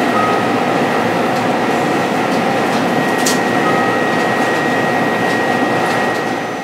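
Steady whirring mechanical noise of subway train equipment, with a thin high whine running through it, swelling up at the start and fading away after about six seconds.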